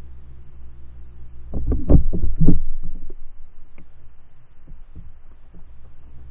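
A quick run of several dull, low thumps and knocks about a second and a half in, lasting about a second and a half, over a steady low underwater rumble. A few faint ticks follow.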